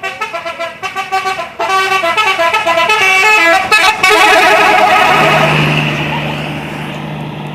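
Multi-tone 'telolet' musical horn of a PO Sumba Putra bus playing a tune of quick stepped notes, then a held chord that fades. A steady low drone comes in about five seconds in.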